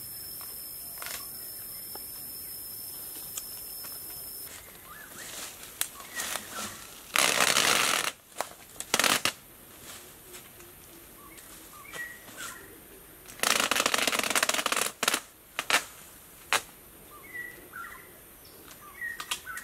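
Clear plastic stretch wrap being pulled off the roll and drawn across a bamboo frame: two loud crackling stretches of about a second each, some six seconds apart, with scattered crinkles and sharp taps in between. A steady high hiss fills the first few seconds.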